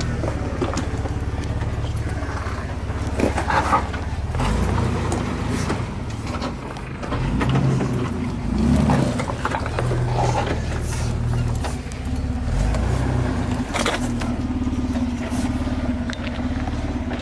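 Jeep Wrangler's 4.0-litre inline-six engine running at low revs while rock crawling, the revs rising and falling a few times. Occasional sharp knocks come through as the tyres work over the rocks.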